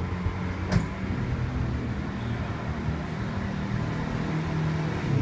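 Street traffic: a motor vehicle's engine running with a steady low hum, and one sharp click a little under a second in.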